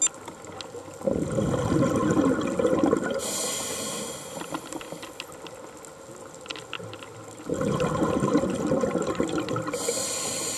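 Scuba diver breathing through a regulator: exhaled bubbles gurgling out twice, each followed by the hiss of an inhalation through the demand valve.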